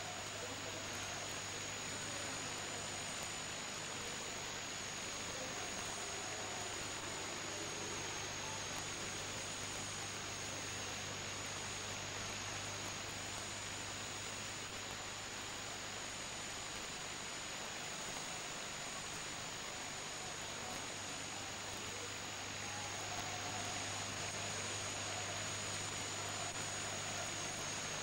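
Steady hiss of an old videotape recording, with a low hum and a thin high whine running under it. Faint murmuring voices of a crowd show through near the start and again near the end.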